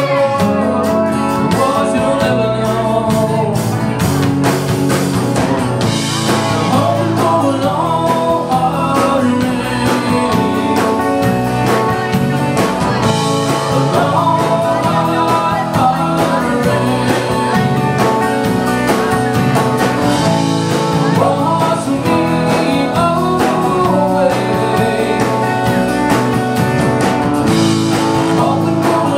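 A band playing a song: a man singing lead over acoustic and electric guitars and a drum kit.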